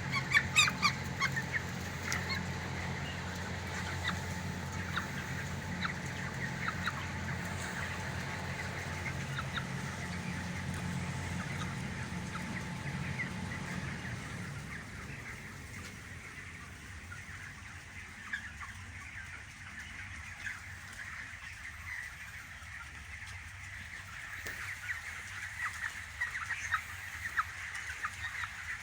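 A flock of broiler chicks peeping and chirping, many short high calls overlapping. A steady low hum underlies the first half and fades out about halfway through.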